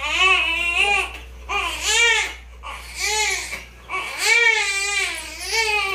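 Infant crying in a run of about five wails, each rising and falling in pitch, with the longest near the end.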